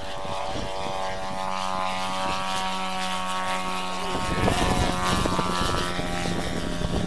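Engine and propeller of a large radio-controlled Christen Eagle scale biplane, running at a steady pitch through an aerobatic pass. About four seconds in it grows louder as the plane comes close along the runway, and its pitch dips slightly.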